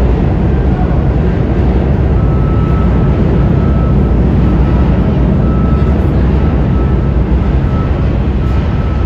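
New York City subway train running through an underground station: a loud, steady rumble of wheels on rail, with a faint high tone that comes and goes from about two seconds in.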